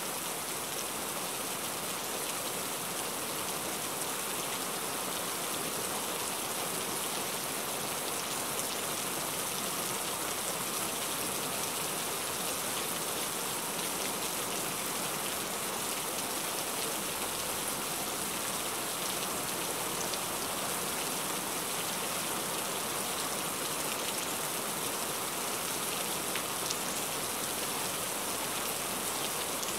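Steady rain falling on a car, heard from inside the cabin: an even hiss of drops on the windshield and body, with no other sounds standing out.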